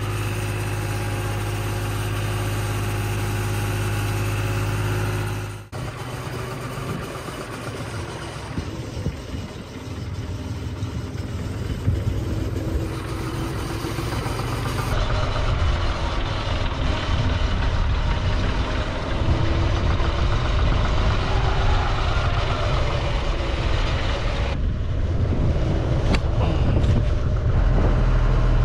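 Farm tractor engine running steadily, heard from the driver's seat. About six seconds in, the sound cuts to a rougher, noisier engine sound with low rumble and wind on the microphone.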